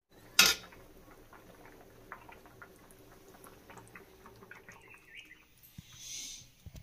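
A short loud burst of noise about half a second in, then faint scattered clicks and scrapes of a metal spatula stirring potato curry in a metal pot.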